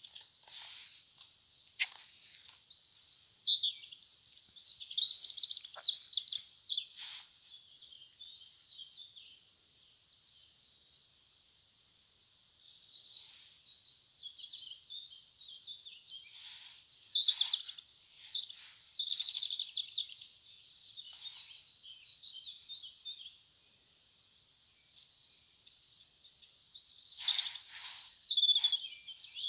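Songbirds singing: quick, varied high chirps and trills in phrases, with lulls of a few seconds between bursts.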